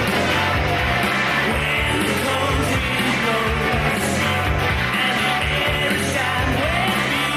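Rock music playing: a recorded song with a steady beat, band and singing.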